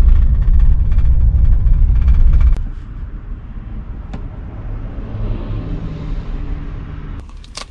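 Loud low rumble of a van driving, heard inside the cab, for about two and a half seconds, then it cuts off suddenly to a much quieter steady low hum.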